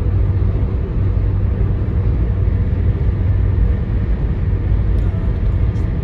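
Steady low rumble of a car driving at speed on an asphalt road, engine and tyre noise heard from inside the cabin.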